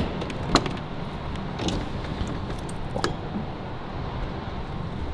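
Steady low rumble of an underground parking garage, broken by a few short sharp taps; the loudest comes right at the start, with smaller ones about half a second, a second and three-quarters and three seconds in.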